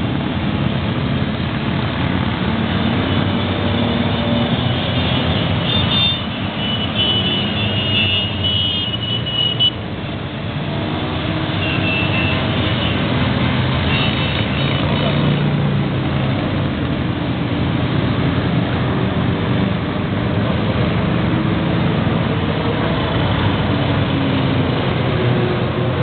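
Many motorcycle engines running together as a steady stream of bikes rides past, a continuous mass of engine noise in which single bikes' notes rise and fall as they go by.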